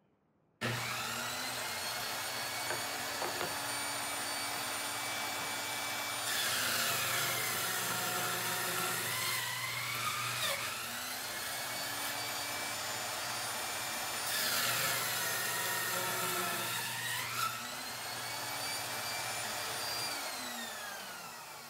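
Circular saw mounted under a homemade saw table starting up and running with a steady whine. It makes two cuts through a wooden block, about six and fourteen seconds in, and the motor's pitch sags under load during each cut. Near the end it is switched off and winds down.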